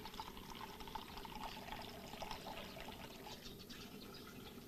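A thin stream of liquor pouring from a wooden spout into an earthenware jar, splashing steadily. It thins out about three seconds in.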